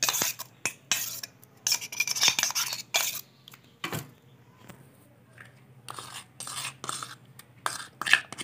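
Metal spoon scraping and clinking against a small stainless-steel bowl, scraping out ground onion paste in quick short strokes: busy for the first few seconds, quieter in the middle, then more strokes near the end.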